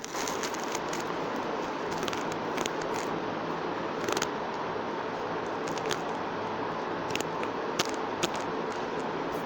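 Steady background hiss with scattered sharp clicks and ticks.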